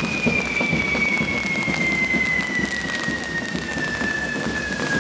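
Hand-held spark-spraying fireworks hissing and crackling densely. Over it, a single whistling tone falls slowly in pitch.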